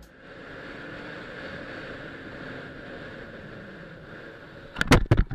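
Steady driving noise of a car in motion, heard from a dashboard camera inside the vehicle: an even rush of road, wind and engine sound. Near the end come a few loud, sharp knocks.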